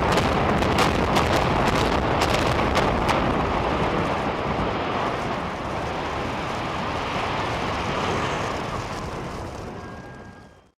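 Explosive demolition of a 12-story structural steel hotel: a few sharp cracks of charges in the first three seconds over the loud rumble of the building collapsing, which then fades slowly.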